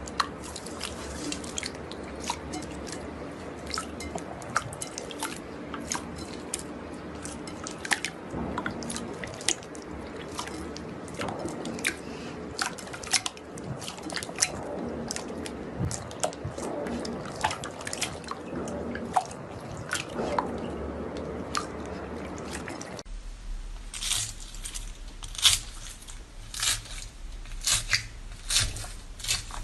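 Crunchy slime being squeezed and worked, giving many small wet crackles, pops and squishes at an irregular rate. About two-thirds of the way through the background changes abruptly, with a low hum coming in, and the crackles become sharper and louder.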